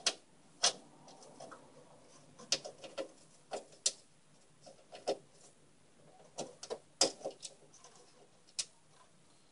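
Irregular clicks and light taps of small metal screws being picked out and handled while a motherboard is fitted into a PC case, with no steady rhythm.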